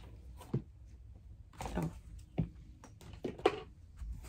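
Short rustles and knocks of objects being moved and handled, several separate ones in a row, over a low room hum.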